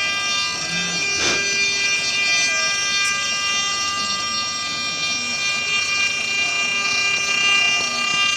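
CNC milling spindle running with an end mill cutting into a clear plastic workpiece: a steady high whine made of many fixed tones, with one short crack about a second in.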